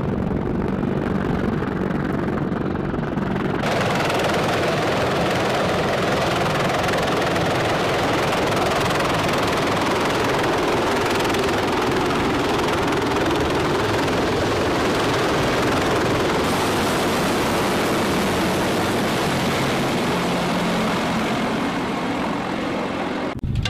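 Sikorsky CH-53E Super Stallion three-engine heavy-lift helicopter running, a steady heavy rotor and turbine noise. About four seconds in it turns louder and hissier as the helicopter is heard close by.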